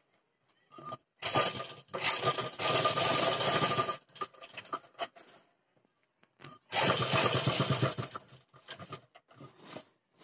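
Surya sewing machine stitching through a folded trouser waistband. It runs in two main spells, the first starting about a second in and lasting nearly three seconds, the second a shorter run of about a second and a half later on, with brief starts and stops in between.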